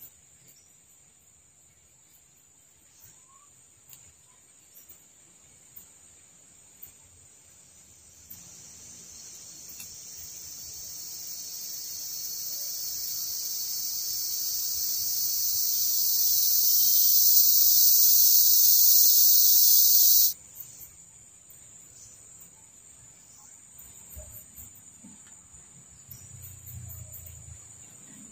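Rainforest insects: a steady high trill throughout, joined by a loud high insect buzz that swells from about 8 seconds in, grows steadily louder, and cuts off suddenly about two-thirds of the way through.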